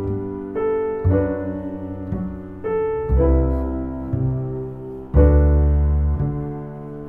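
Slow background piano music: chords with low bass notes, struck about once a second and left to ring and fade.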